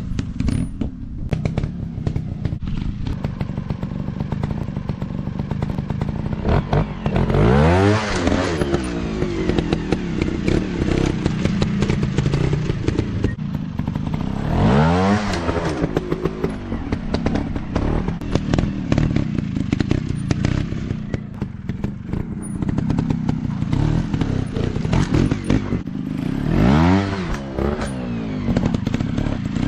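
Dirt bike engines running with a constant clatter, the pitch sweeping up and back down three times, about a quarter of the way in, near the middle and near the end.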